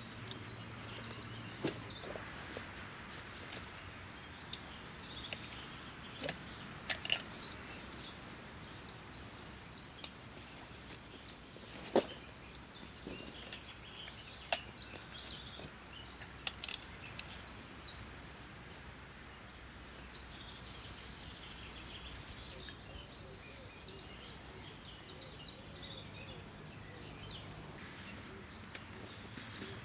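Songbirds singing: short, high, rapid trilled phrases repeating every few seconds over a steady outdoor hiss. Two sharp clicks stand out near the middle.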